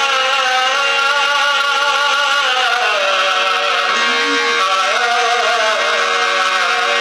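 A man singing long, held, wavering melodic notes in an Indian style over a steady sustained tone underneath.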